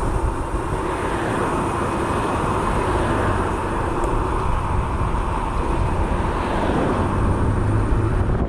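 Wind rushing over the microphone of a bicycle riding fast downhill, a steady roar of air with road noise beneath it. A low hum comes in near the end.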